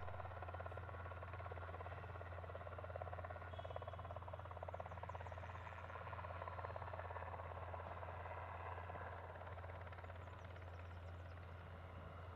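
Faint, steady drone of an aircraft engine running at the airfield, with a rapid even pulsing over a low hum.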